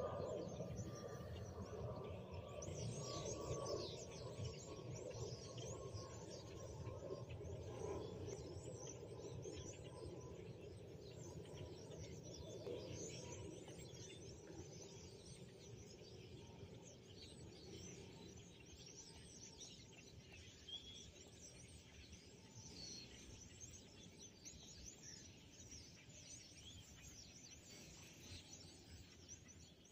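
A large flock of starlings calling, many overlapping chirps. A low rumble under it fades away over the first half.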